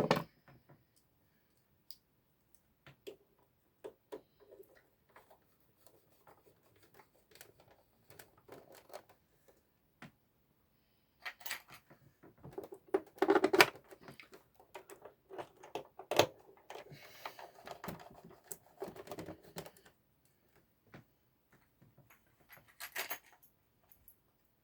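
Scattered clicks, taps and small metallic rattles of a screwdriver and small parts being handled, with a sharp knock at the start and a busier stretch of clattering in the middle.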